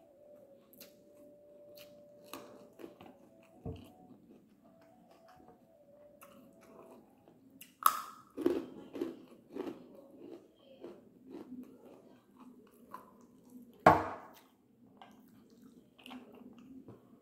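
A person eating string hoppers with dried-fish curry by hand: wet chewing and lip-smacking, busier in the second half. Two sharp clicks stand out, about eight and fourteen seconds in.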